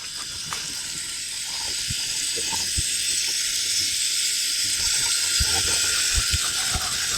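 Rocky Mountain whitefish frying in butter in a pan over a fire: a steady sizzle that grows a little louder, with scattered small pops and crackles.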